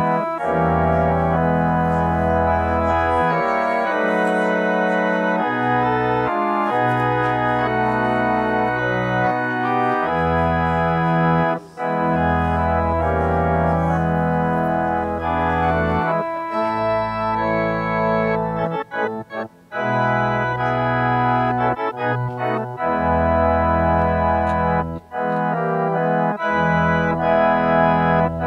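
Church organ playing held chords over a sustained low bass line, moving from chord to chord with short breaks between phrases about twelve seconds in and again about twenty seconds in.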